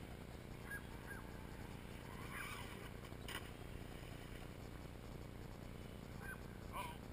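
Several short waterfowl calls that bend in pitch, over a faint steady low hum.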